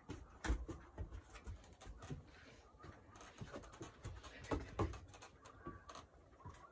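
Dog searching on a wooden deck: faint sniffing and panting, with scattered light taps and knocks as its paws and claws meet the boards, a chair and a table.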